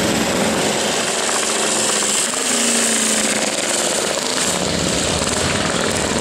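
Vintage motorcycle engines running as the bikes come along the course road.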